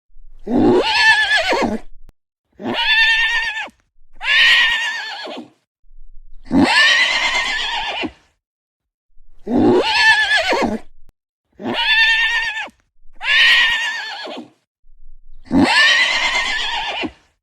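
A horse neighing: about eight separate whinnies, each one to two seconds long with a wavering pitch, cut apart by silence.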